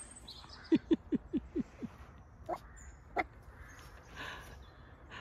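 A dog barking: a quick run of six short barks, each falling in pitch, about a second in, then two single barks.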